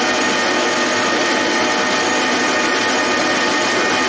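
Metal lathe running steadily, its chuck spinning while the cutting tool works a small metal part: an even whirring with a faint whine.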